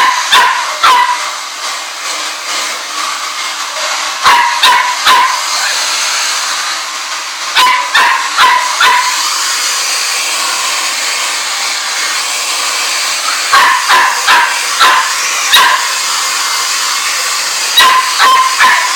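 A small dog, a Chihuahua, yapping in short bursts of two to four high-pitched barks, about five bursts in all, over a steady hiss.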